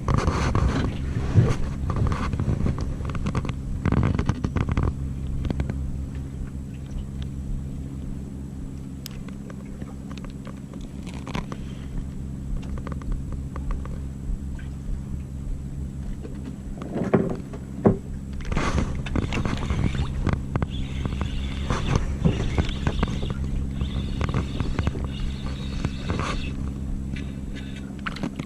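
An engine running steadily at an even pitch, with scattered knocks and scrapes over it.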